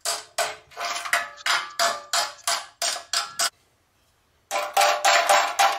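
Hammer striking a welded steel chassis section, about three blows a second, each blow leaving the metal ringing. The blows stop dead for about a second just past the middle, then resume a little faster.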